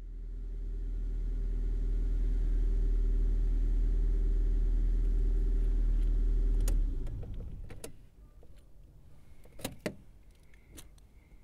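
Car engine running, heard from inside the cabin: a steady deep rumble that fades in, then shuts off about seven seconds in. A few sharp clicks follow, with a faint high tone near the end.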